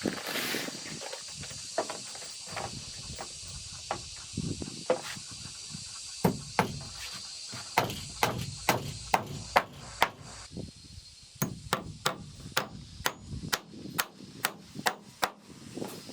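Repeated blows of a hand tool on wood during timber house building, scattered at first, then a steadier run of about two strikes a second from around the middle.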